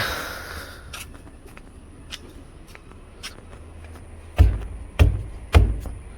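Pneumatic impact wrench rattling in three short bursts about half a second apart, near the end, with a few light clicks and knocks before.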